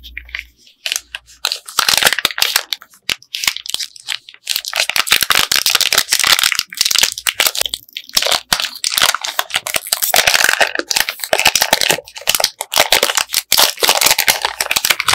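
Candy wrappers being torn open and crinkled by hand, a dense crackle of sharp clicks that starts sparse and turns near-continuous about four seconds in, with a brief pause midway.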